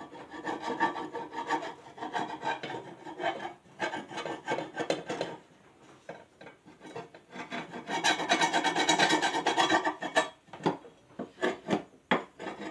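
Hand tool scraping caked dried grass off a steel Lawn-Boy mower blade in quick back-and-forth strokes, with a quieter pause about halfway through and a few separate sharp strokes near the end.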